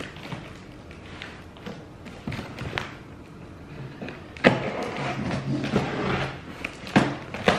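A cardboard box being opened with scissors: snipping and slitting through packing tape and rustling cardboard flaps, with two sharp knocks about four and a half and seven seconds in.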